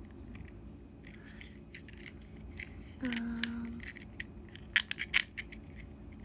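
Plastic fidget pad being clicked: a scatter of sharp single clicks from its buttons and switches, with a quick run of clicks near the end.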